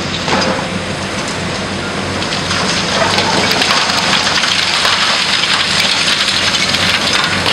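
Dense crackling and hissing of crumbling concrete debris and spraying water as a high-reach demolition excavator tears into a concrete office block, over the steady low hum of the machine's engine. The crackle grows louder about two and a half seconds in.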